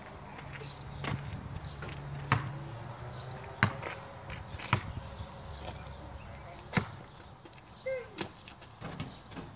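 Basketball bouncing on a paved driveway: a sharp single thud every second or so, about six in all.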